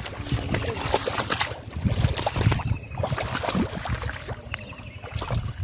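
Water splashing and sloshing in irregular short bursts, as from hands or legs moving through shallow river water.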